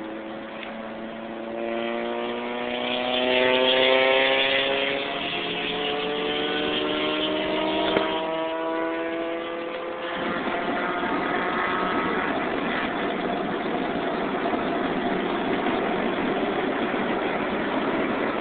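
Honda B16 four-cylinder running through a Buddy Club Spec II aftermarket exhaust, heard from inside the car: the revs climb steadily under acceleration for about eight seconds. A sharp click comes about eight seconds in as the revs fall away, and the engine then settles into a steadier, rushing drone at cruise.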